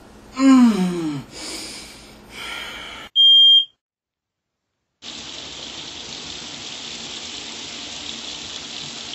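Smoke alarm giving one loud, high, steady beep lasting about half a second, about three seconds in. After a second of dead silence a steady hiss follows.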